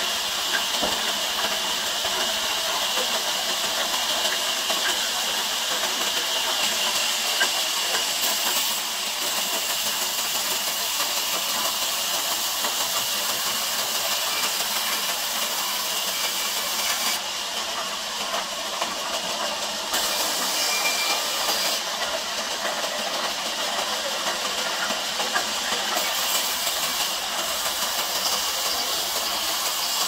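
Large vertical band saw ripping a log lengthwise: the blade and its drive make a steady, loud hiss of sawing, and the highest part of it eases off for a few seconds twice in the latter half.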